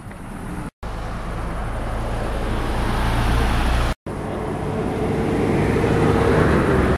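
Steady road and engine rumble of a car driving on a highway, growing louder over the middle part. It is broken twice by short, sudden silent gaps, about a second in and about four seconds in.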